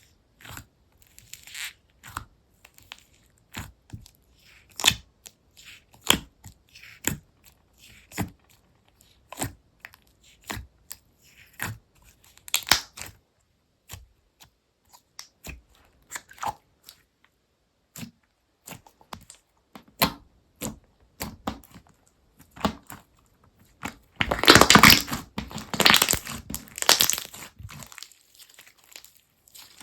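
Slime being squished and stretched by hand: irregular sharp pops and clicks, with a louder stretch of dense crackling about three-quarters of the way in.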